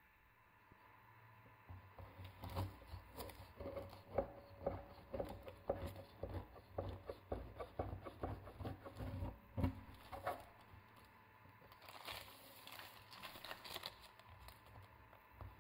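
Kitchen knife cutting down through a pie's crisp baked meringue and grated-dough topping: a rapid run of crunching crackles. Near the end comes a softer rustling scrape.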